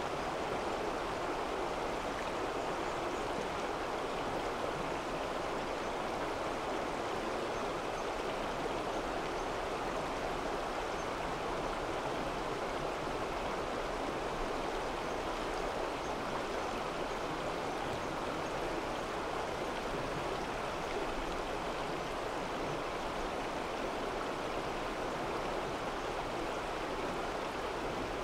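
A rushing stream: steady, even water noise that does not change.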